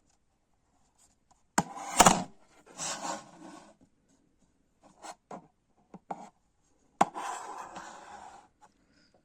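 Handling noises: a few sharp clicks and knocks, the loudest about two seconds in, with a second or so of rubbing after the loudest ones.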